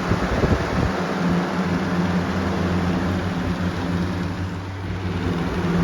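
Lasko Cool Colors box fan running on high speed: a steady rush of air over a motor hum, with a chatter that the owner puts down to something stuck behind the blade hub rubbing.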